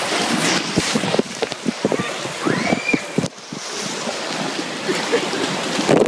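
Rushing, churning water of a water-park wild-river ride, with repeated splashing and the voices of the bathers in it.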